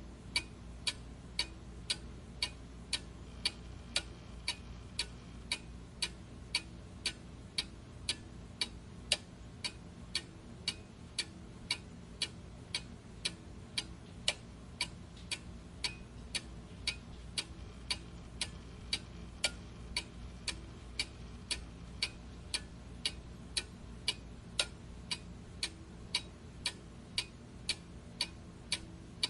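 Clock ticking steadily, about two even ticks a second.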